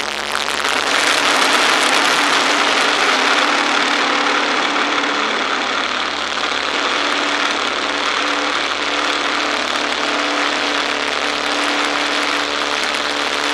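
Boeing-Stearman Model 75 biplane's radial engine and propeller running steadily at high power during the take-off run, with heavy wind rush over the wing-mounted microphone.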